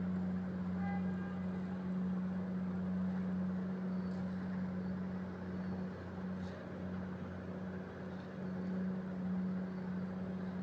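Engines of road-building machinery laying asphalt, running with a steady deep hum. A short beep sounds about a second in.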